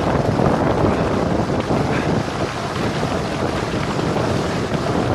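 Wind rushing over the microphone of a helmet-mounted camera on a bicycle descending a gravel road at speed, a steady loud roar of noise with no let-up.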